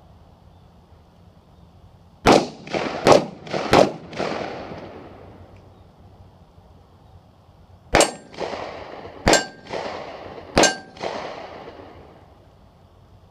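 Six gunshots in two strings of three, the first three quick and the next three slower, each echoing away. The last three are followed by a metallic ringing, typical of bullets striking steel targets.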